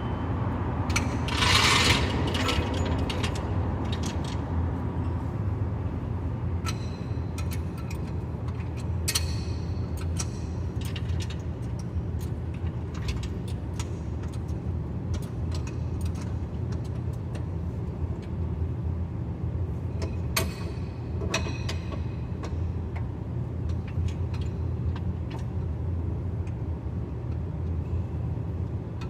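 Steady low rumble of road and drivetrain noise heard from beneath a moving 2012 BMW 328i (E93), near the rear differential, with scattered clicks and rattles. The loudest of these come about two seconds in and again around twenty seconds in.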